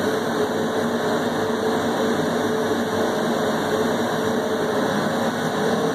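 Steady machine hum: even noise with a constant low tone and no change in level.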